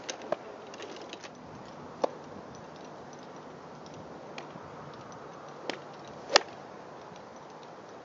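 Scattered sharp clicks of golf clubs striking balls on a driving range, about five of them, the loudest about six seconds in, over a steady outdoor hiss.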